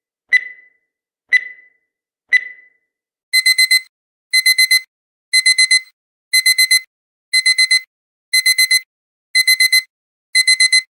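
Countdown timer giving a short high beep each second for its last seconds. Then, about three seconds in, as the timer reaches zero, a digital alarm-clock alarm starts: groups of four quick high beeps, repeating once a second.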